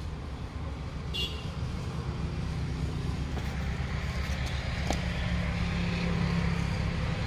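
A motor running steadily with a low hum, with a brief faint click about a second in and another near five seconds.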